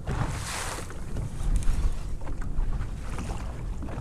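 Wind buffeting the microphone over water lapping around a small boat, with a brief louder rush of hiss about half a second in.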